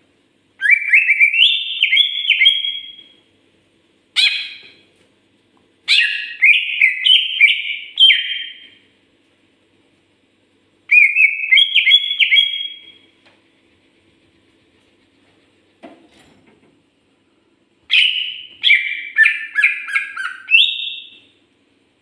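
A cucak ijo (greater green leafbird) singing: bursts of rapid, stepping whistled notes in phrases of one to three seconds, about five phrases with pauses between.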